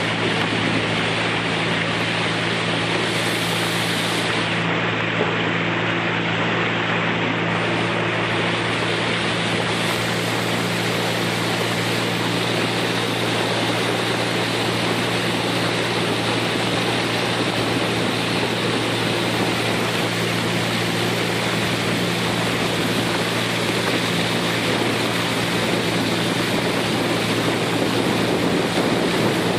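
Small boat's motor running steadily under way, with the rush of water along the hull and wind on the microphone.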